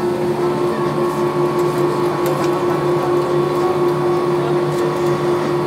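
Steady droning hum inside an Airbus A319 cabin while it taxis after landing, the engines at idle, with a constant held tone.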